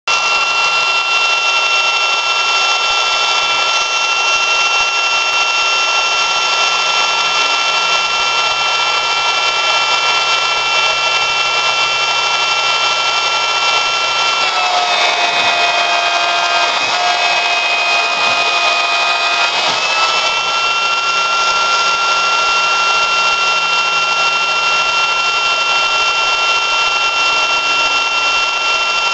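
High-speed auxiliary spindle on a G0704 milling machine running and milling aluminium plate with a small end mill at a 50 inch-per-minute feed: a steady high whine over cutting hiss. About halfway through the pitch shifts lower for about five seconds, then returns.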